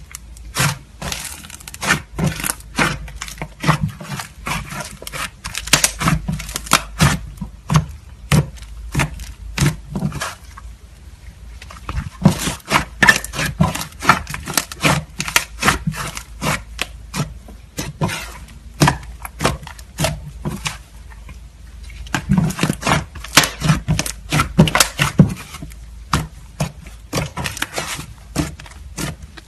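Slime being squeezed and pressed by hand, giving rapid, irregular crackling and popping clicks that pause briefly a few times.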